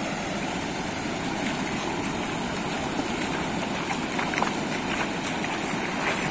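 Ocean surf: waves breaking offshore and foam washing over the shallow beach, an even rushing wash.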